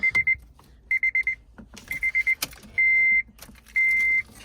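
2006 Honda Civic's dashboard warning chime beeping in quick groups of four, then changing to single long beeps about three seconds in, with a few sharp clicks between.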